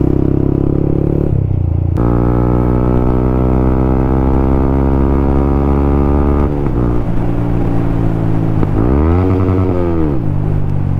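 Yamaha MT-15 V2's single-cylinder engine, breathing through an aftermarket full-system exhaust, pulling hard up through the gears. The note changes abruptly at upshifts about two and six and a half seconds in, then briefly rises and falls in pitch near the end as the throttle eases.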